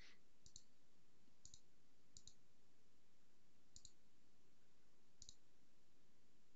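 Five faint computer mouse clicks spread over a few seconds, each a quick double tick.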